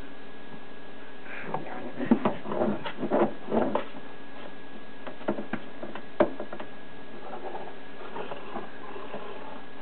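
A cat scuffling in a cardboard box against a poking stick: a flurry of scratchy taps and knocks on the cardboard from about one to four seconds in, then a few sharp clicks, the loudest about six seconds in, and faint rustling after.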